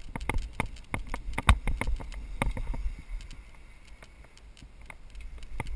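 Mountain bike rolling down a bumpy grass trail, heard from a helmet-mounted camera: irregular sharp knocks and rattles from the jolts over a low wind rumble. The knocks thin out for a couple of seconds past the middle and pick up again near the end.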